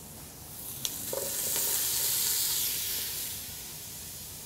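Onions, leeks and squash sizzling as they sauté in a hot pan. After a light click just under a second in, the sizzle swells, then slowly fades.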